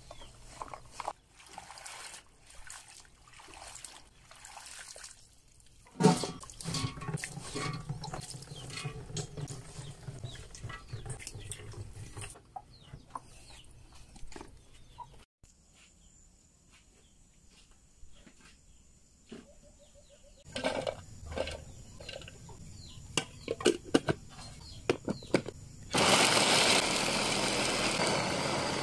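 Water splashing and sloshing in plastic basins as roselle calyces are washed, with scattered knocks and a quieter spell midway. About three seconds before the end, a small electric food chopper starts and runs steadily and loudly, chopping the calyces.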